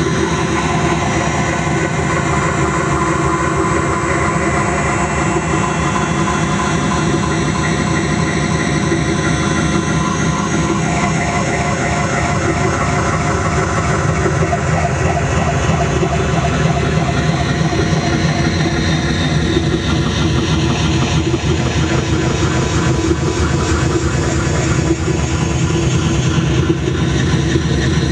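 Dense, droning electronic noise from a cassette tape head scanning videotape on a spinning turntable, amplified through a cassette-deck preamp and processed by a Whammy pitch-shift pedal, a BP200 bass pedal and a Boss DD-5 digital delay. A loud, steady wall of layered tones over a low rumble, with some pitches sliding up and down in the middle stretch.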